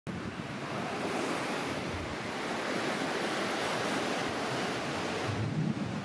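Pacific Ocean surf breaking and washing up a sandy beach in a steady rushing wash, with wind rumbling on the microphone near the end.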